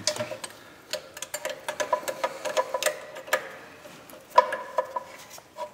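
Ratchet wrench clicking in quick runs as bolts on a metal housing are turned, each click ringing briefly.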